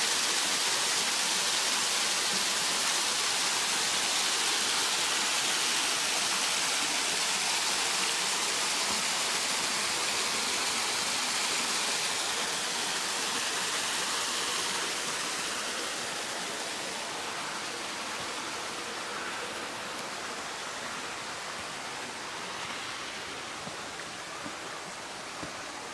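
Hot-spring water running and splashing into a rock pool, a steady rushing hiss that grows gradually quieter over the second half.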